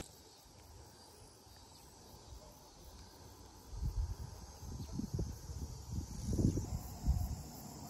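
Quiet open-air ambience, then from about halfway gusts of wind buffeting the microphone in irregular low rumbles.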